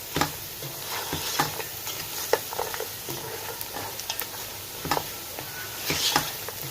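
Mutton, onions and spices frying in oil in a pot: a steady sizzle with sharp clicks now and then.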